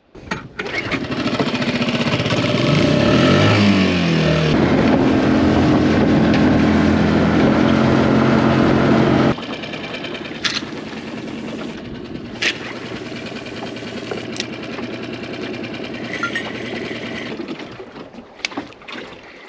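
Small boat outboard motor coming up to speed, its note rising as it revs, then running steadily and loudly. About nine seconds in it drops abruptly to a quieter, lower running level, with a few sharp clicks, and it dies away near the end.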